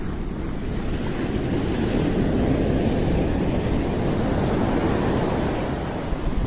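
Steady, even rush of running water, loudest in the low range, with no breaks.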